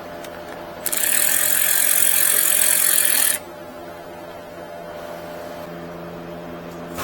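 An air tool runs in a single burst of about two and a half seconds, a loud hissing whir that starts and stops abruptly, over a steady low hum.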